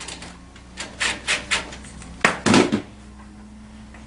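Clicks and knocks of a bolt and nut being fitted by hand into an ATV's front rack mount: a quick run of light clinks about a second in, then a louder clatter a little past two seconds, over a steady low hum.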